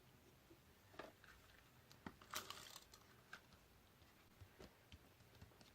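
Faint sounds of card and paper being handled: a few light clicks and taps, and a short rustle about two and a half seconds in.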